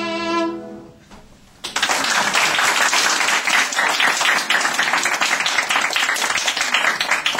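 A violin holds its final bowed note, which fades out within the first second. After a short pause, applause starts and runs on.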